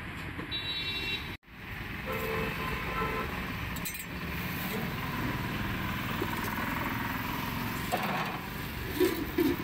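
Roadside street ambience: a steady noise of passing traffic, with a few short clinks and faint voices. The sound cuts out for a moment about a second and a half in.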